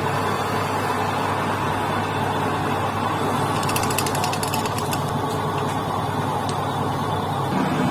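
A workshop machine running steadily with a low hum, with a short run of light clicks or ticks in the middle.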